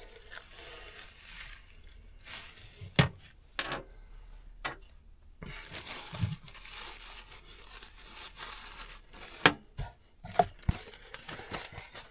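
Hands working at the cracked, porous crankcase breather hose and its old tape wrapping: soft rustling and scraping with a few sharp clicks and knocks, the loudest about three seconds in and more around nine to ten seconds in.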